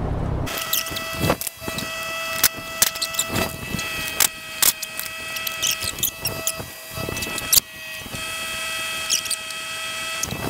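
Metal clicks and knocks of a combination wrench working the transmission crossmember bolts under a car, with a few short squeaks. A steady high whine runs behind it from about half a second in.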